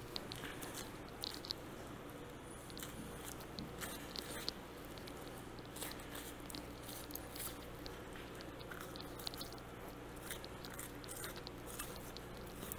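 Knife cutting a thick bison hide free from the carcass while it is pulled back by hand: scattered faint, irregular crisp ticks and wet squishes over a steady low hum.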